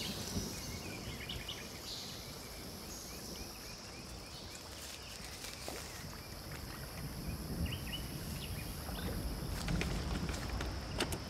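Outdoor ambience: a steady low rumble with faint chirps coming and going, and a few sharp clicks near the end.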